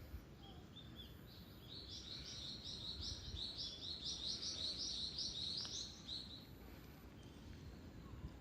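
A songbird singing a quick run of repeated high chirps, about three notes a second, for roughly five seconds, over steady low outdoor rumble.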